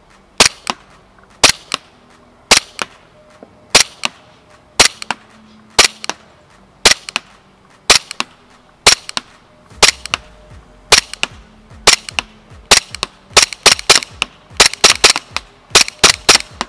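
Umarex Glock 17 Gen 5 gas blowback airsoft pistol firing a string of single shots, each a sharp crack with a lighter snap about a fifth of a second after it. About one shot a second at first, quickening to two or three a second near the end.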